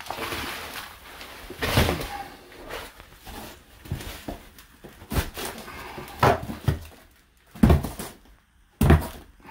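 Damp cement mortar sliding out of a plastic tub onto the shower floor with a short rushing scrape, followed by about five sharp knocks and scrapes as the tub is tipped and emptied of the rest of the mix.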